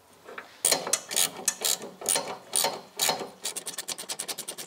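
Ratchet wrench working a bolt loose on the master brake cylinder mounting: a handful of separate clicking strokes, then from about three and a half seconds in a fast, even run of ratchet clicks as the bolt is backed out.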